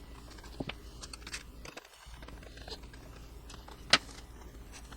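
Faint clicks and small scrapes of an HO scale model railroad car's coupler box being worked on by hand, with one sharper click about four seconds in, over a faint low hum.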